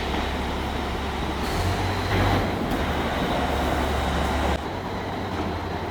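Steady mechanical noise, a low rumble under a hiss, that shifts abruptly about a second and a half and four and a half seconds in.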